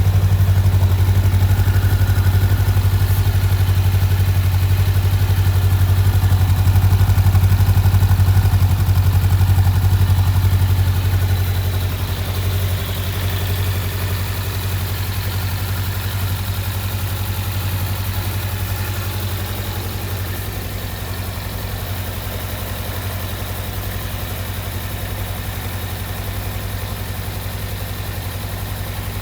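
Honda Rebel 500's parallel-twin engine idling steadily. It is a little louder for the first ten seconds or so, then settles a few decibels lower.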